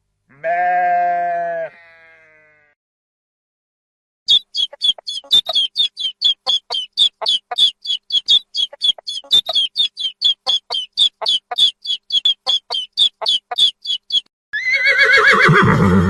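A sheep's bleat, then a long run of short, sharp, high chirps at about four a second, then a horse whinnying near the end.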